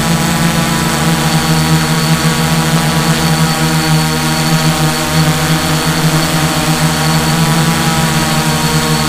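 Multirotor drone's electric motors and propellers running steadily at a constant pitch, heard from the camera on board as the drone descends.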